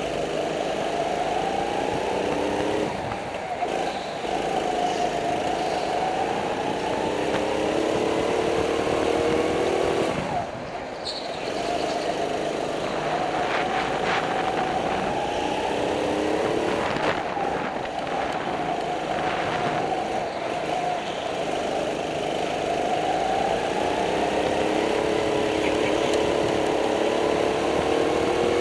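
Go-kart engine heard from on board at racing pace, its revs rising and falling over and over as it accelerates down the straights and drops for the bends. A sharper fall in revs and level comes about a third of the way in.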